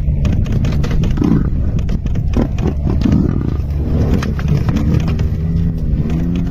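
Steady low hum of an idling vehicle engine, with drawn-out animal calls from the buffalo and lions fighting laid over it several times.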